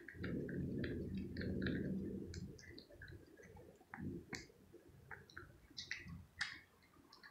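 Tabby cat eating chunks of wet cat food from a plastic plate: rapid wet chewing and licking clicks of its mouth, with a low rumble through the first two seconds.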